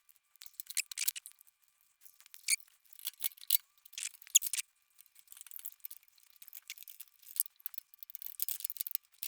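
Small parts being handled and fitted by hand: a scattered run of light clicks, taps and scrapes.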